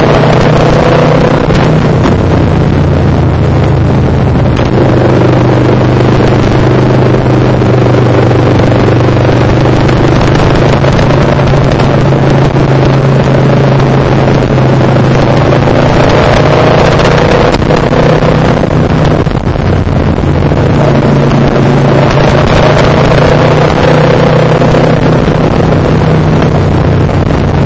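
Motorcycle engine running at a steady cruise under load, heard from the rider's own bike, with wind rushing over the microphone. The engine note holds fairly even, easing briefly about two-thirds of the way through.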